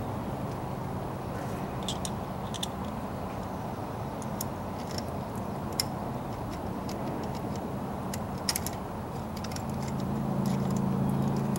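Scattered light clicks and ticks of a hand screwdriver turning screws into a metal transducer mounting bracket, over a steady low background rumble. A low hum comes up near the end.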